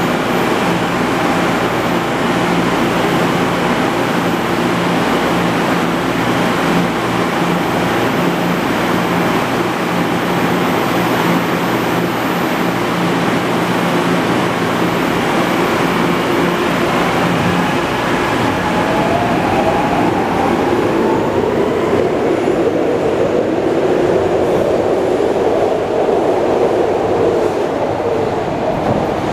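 SEPTA Adtranz M-4 subway train standing at an underground platform, its equipment running with a steady hum. About eighteen seconds in the hum gives way to the train pulling out: a whine rising in pitch as it accelerates, then the rumble of the cars running out of the station.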